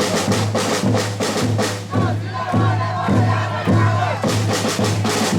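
Spectators' crowd noise mixed with music that has a steady drum beat, with repeated sharp drum or clap strokes.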